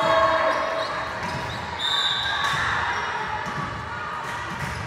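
Indoor volleyball play in a large, echoing gym: the ball is struck and bounces on the court, with a few sharp knocks and a brief high squeak about two seconds in.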